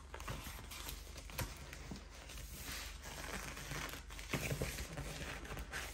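Soft, uneven crinkling and rustling of a diamond painting canvas's clear plastic cover film and a paper chart sheet as hands smooth and shift them.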